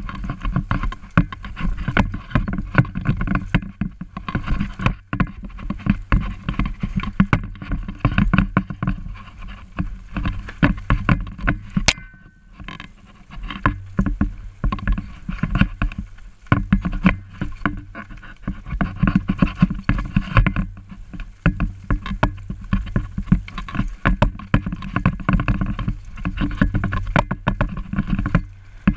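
Mountain bike rattling and clattering over a rough, bumpy trail: a constant run of knocks and rattles from the bike over a low rumble on the microphone. About twelve seconds in it briefly quietens and a short high squeal sounds.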